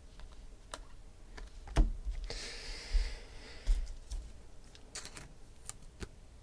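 Trading cards being handled and set down on a table: a series of sharp clicks and taps, with a brief rustling slide a little over two seconds in.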